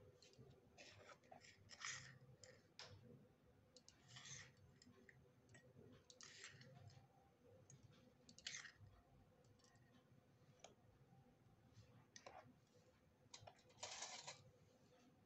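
A small metal spoon scraping and clinking against a tiny steel bowl while scooping crushed chocolate biscuit crumbs: a series of short, faint scrapes and clicks, some lasting about half a second.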